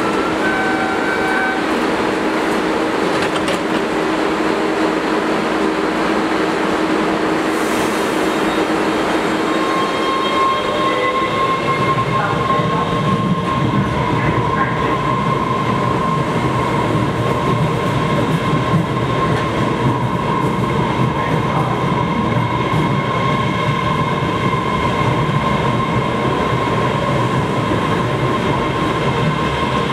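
MBTA Red Line subway train standing at the platform with a steady hum, a few short tones sounding about a second in. From about ten seconds in it pulls out slowly: a steady motor whine starts and the rumble of the wheels grows as the cars roll past.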